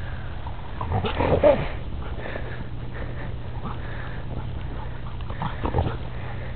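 Puppy making two short vocal sounds while playing, a louder one about a second in and a smaller one near the end, over a steady low hum.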